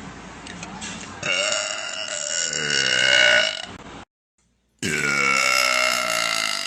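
A woman belching loudly twice. The first is a long, drawn-out belch that starts about a second in and wavers in pitch. After a short break comes a second long, steady belch that cuts off suddenly.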